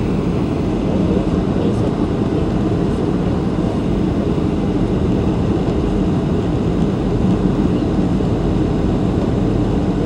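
Steady engine and airflow rumble inside an airliner cabin, an even, low noise with no changes.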